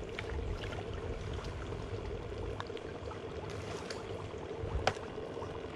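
Water running and trickling steadily, with a few small clicks and one sharper knock near the end.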